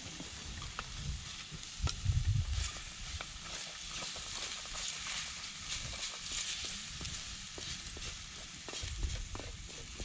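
Meat sizzling in a steel frying pan over a wood fire while a wooden spatula stirs it, with small scrapes and taps against the pan. A low rumble comes about two seconds in and again near the end.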